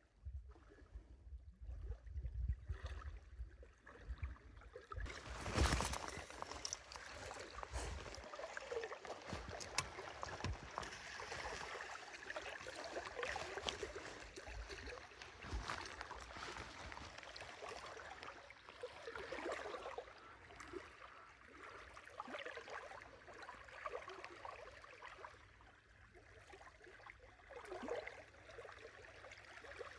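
Water sloshing and gurgling, faint and uneven, with a low rumble in the first few seconds and a sharp knock about five and a half seconds in.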